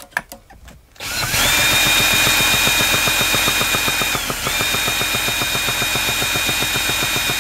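Electric drill spinning a Roto-Start to crank a nitro RC car engine: a steady high motor whine that ramps up about a second in, dips briefly about four seconds in and recovers, over rapid even pulses of the engine turning over without catching. The owner takes the easy cranking for a loss of compression.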